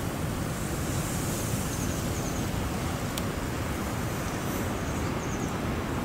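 Strong wind blowing steadily on the microphone, a continuous rushing rumble with no lulls.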